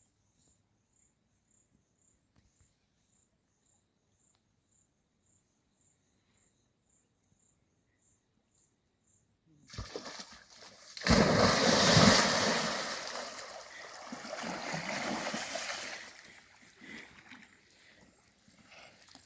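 About ten seconds of near silence, then heavy splashing in river water that is loudest a little after eleven seconds in and dies away over the next few seconds.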